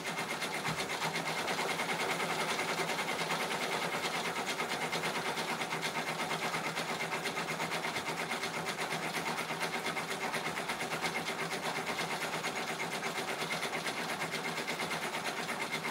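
Ricoma multi-needle embroidery machine stitching a monogram into a stuffed animal, run near full speed at about 1,000 stitches per minute: a fast, even, steady rattle of needle strokes.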